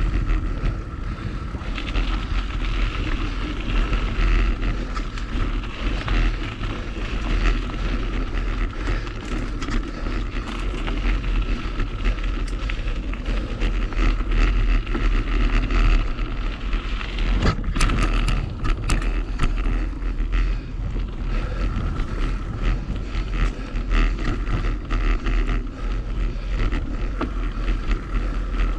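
Mountain bike riding fast along a dirt singletrack: wind buffets the action camera's microphone over steady tyre noise and the rattle of the bike. A quick run of sharp clacks comes about two-thirds of the way through.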